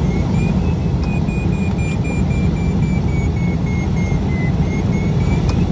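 Airflow rushing past the open cockpit of a Swift flying-wing glider, heard as a steady rumble of wind on the microphone. Over it, a glider variometer beeps in a quick continuous run as its climb signal, the pitch dipping slightly and rising again near the end as the lift varies in the thermal.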